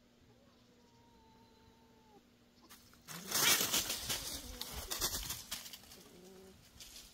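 Dry fallen leaves rustling and crackling loudly for about two seconds, starting about three seconds in, as cats scramble through the leaf litter, one of them going up a tree.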